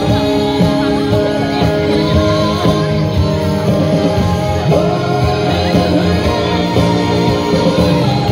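Live amplified singing over instrumental backing: a duet-style pop ballad sung into handheld microphones, with sustained notes held over the accompaniment.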